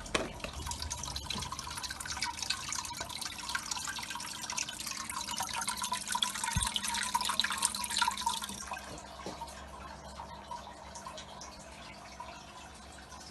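Water trickling and bubbling in an open tropical fish tank, a dense fine crackle of small drips and splashes that grows louder in the middle and fades off after about eight seconds.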